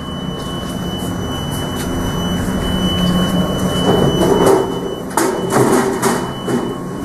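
Can vending machine's mechanism running with a low steady hum that grows louder over the first few seconds, then rattling and several sharp knocks near the end.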